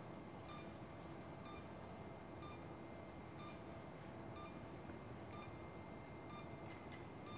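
A peripheral nerve stimulator beeps faintly and regularly, about once a second, with each electrical pulse it sends through the block needle. Under the beeps runs a faint steady hum of equipment.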